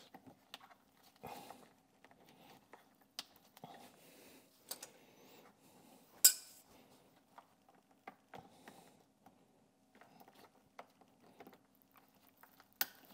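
Gloved hands working white plastic wire-harness connectors for a Samsung dishwasher's waterwall motor, with scattered small clicks and rustles as the plugs are pushed together. A sharp click about six seconds in, as a connector latches, and another just before the end.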